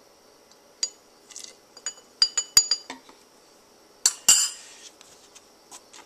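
Metal teaspoon clinking against the rim of a whipped-cream dispenser canister and a glass dish: a run of light, ringing clinks, with two louder ones about four seconds in.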